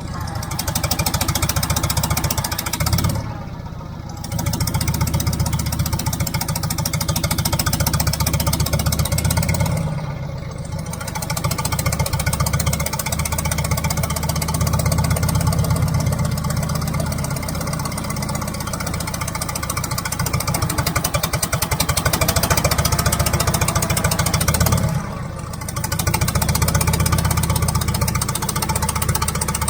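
Heavy-equipment engine running steadily at an even, pulsing idle, with brief drops in level about 3, 10 and 25 seconds in.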